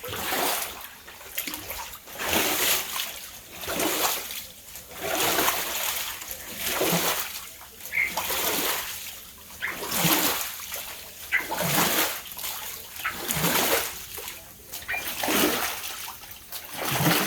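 Floodwater splashing and sloshing in regular surges that swell and fade about every one and a half seconds.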